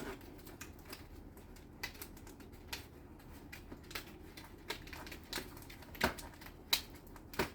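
Irregular light clicks and taps from objects being handled on a kitchen counter, with a few sharper clicks near the end.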